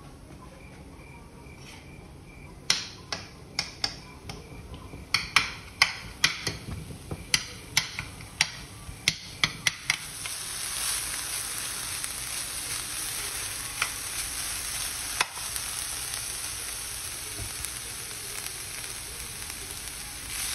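Ground meat frying and browning in a pan. Over the first half, a run of sharp, irregular knocks of a metal spoon against the pan as the meat is broken up. From about halfway on, a steady, louder sizzle.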